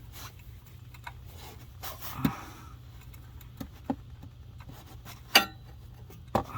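A few separate sharp metallic clicks and knocks from hand tools working on the clutch pressure plate bolts, the loudest about five seconds in, over a faint steady low hum.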